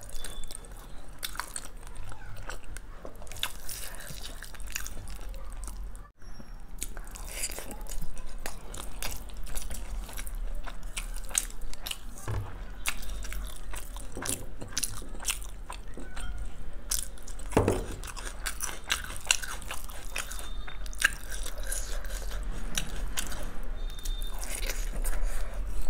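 Close-miked eating sounds: a person biting and chewing mouthfuls of biryani eaten by hand, a dense uneven run of wet smacks and small clicks.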